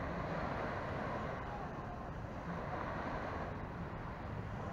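Beach ambience: small waves washing onto the sand in a steady hiss, with wind buffeting the microphone.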